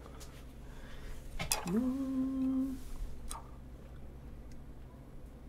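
A woman's closed-mouth hum, "mmm", about one and a half seconds in, sliding up in pitch and then held for about a second, just after a sharp click; another click comes about half a second after the hum ends.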